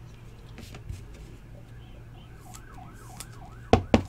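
Faint distant siren in a quick rising-and-falling yelp for about a second, over a steady low hum. Near the end come two sharp clicks, about a fifth of a second apart, from handling a sleeved trading card.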